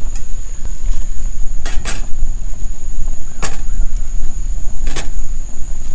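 Light metal clanks of a frying pan and cookware being handled on a propane camp stove, five in all, the first two a few tenths of a second apart. Under them run a steady low rumble and a steady high insect trill.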